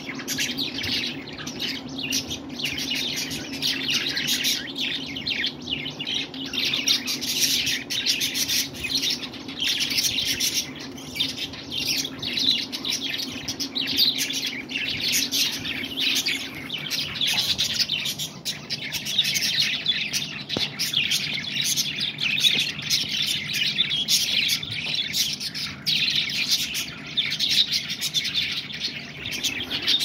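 Many budgerigars chattering and chirping at once in an aviary, a dense, unbroken stream of short high chirps, over a steady low hum.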